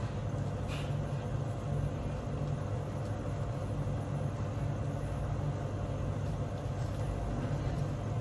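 Steady low mechanical hum that does not change, with a faint higher tone above it.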